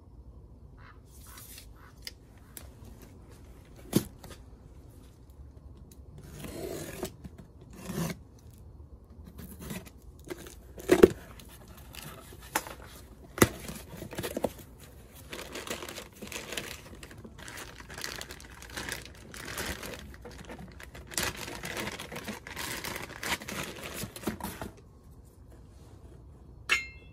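A cardboard mailing box being opened by hand: tape and paper tearing and rustling, with a few sharp knocks along the way.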